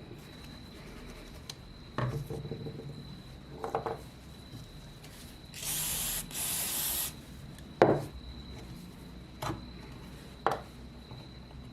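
Two short hissing bursts from an aerosol spray can about six seconds in, amid scattered knocks and rubbing as metal parts are handled; one sharp knock just after the spray is the loudest sound.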